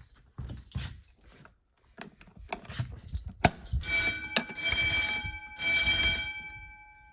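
Wheelock fire alarm motor bell ringing in two short bursts of about a second each, its gong ringing on faintly after it stops. A couple of sharp clicks come just before it.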